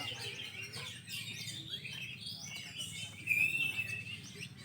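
Several oriental magpie-robins (kacer) singing at once, a dense tangle of rapid chirps and whistles, with one held high whistle about three seconds in.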